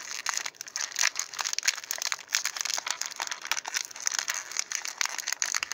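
Thin plastic packaging crinkling and rustling as it is handled and opened, a continuous run of small irregular crackles.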